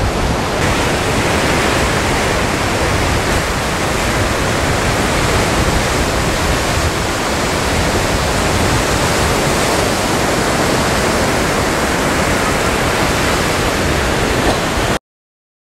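Surf breaking and washing up a sandy beach, a dense, steady rush of noise that cuts off suddenly near the end.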